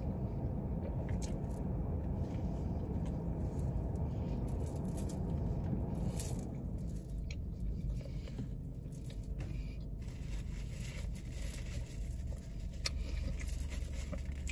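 Eating a fried chicken sandwich in a car: scattered small crunches, wet chewing and the scrape and rustle of food handling, over a steady hum from the car's engine and fan that drops in level about halfway through.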